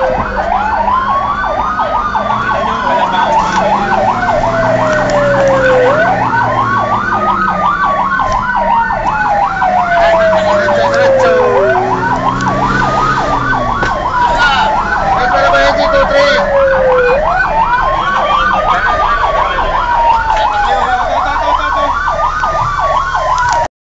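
Fire engine sirens heard from inside the cab while responding. One runs in a fast, rapid yelp. Over it, a second wails up quickly and then falls slowly, starting over about every five and a half seconds.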